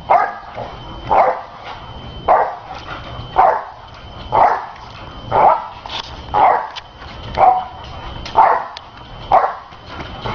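A dog barking over and over, about one bark a second, evenly paced.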